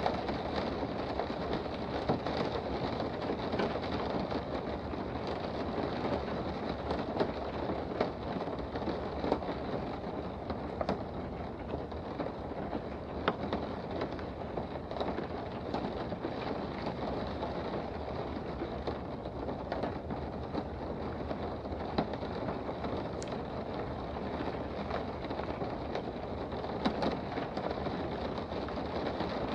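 Steady rain heard from indoors: a constant even hiss with scattered sharp ticks of drops striking.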